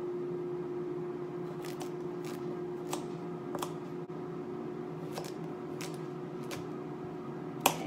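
Irregular sharp taps of a knife on a granite countertop as carrots are cut, about eight in all, the loudest near the end. Under them is the steady hum of a Cosori air fryer running as it preheats.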